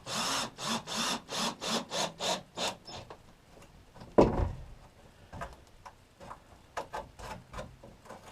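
Hand saw cutting a wooden board in quick, even strokes, about three a second, stopping about three seconds in. A little later comes one loud knock of wood, followed by scattered lighter taps and clicks.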